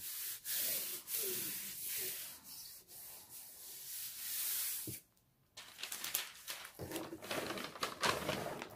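Hands rubbing and smoothing parchment paper over a diamond painting canvas: a papery swishing rustle in long, swelling strokes. It cuts out briefly about five seconds in, then comes back as quicker, crinklier rustling.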